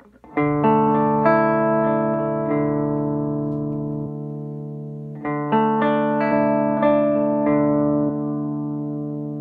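Electric guitar played through a Sano 16WR vintage tube combo amplifier. Chords are picked out note by note and left to ring, each slowly fading away. The first begins about a third of a second in and the second about five seconds in.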